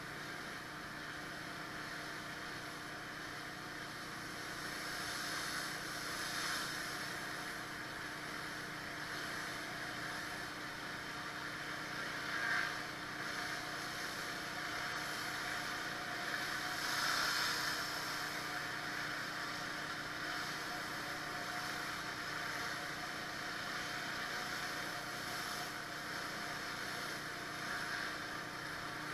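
Pressure washer engine running steadily, with the hiss of high-pressure water spraying on concrete that swells a few times.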